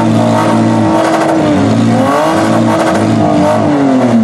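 Engines of demolition-derby minivans revving hard, their pitch rising and falling over and over, with more than one engine heard at once.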